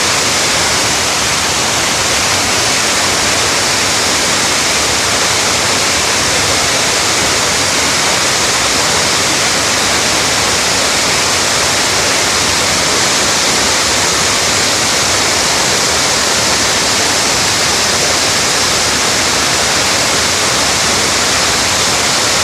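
Waterfall: water falling and splashing with a loud, steady rush.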